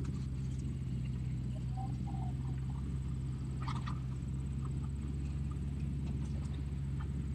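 Steady low diesel drone of an excavator feeding brush into a tracked horizontal wood grinder, with a few short knocks, the clearest about three and a half seconds in.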